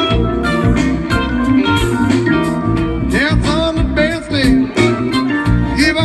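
A live rock band playing a bluesy song with electric guitar, bass and drums, and a voice singing from about halfway through.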